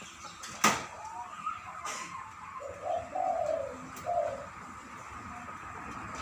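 A dove, kept as a decoy bird for its big voice, cooing: a few low coo notes in the middle of the stretch. A sharp click near the start is louder than the cooing.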